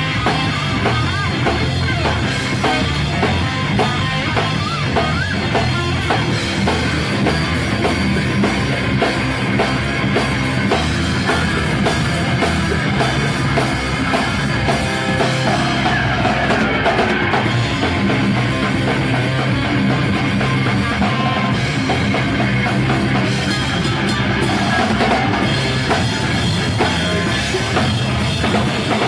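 Rock band playing loud and live: electric guitars and a drum kit with kick drum, running steadily without a break.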